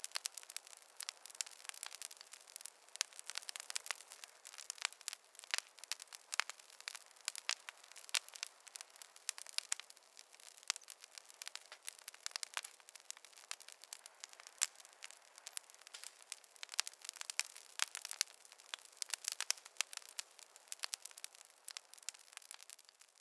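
Campfire crackling: a dense, irregular run of sharp pops and snaps over a faint hiss, with no deep rumble.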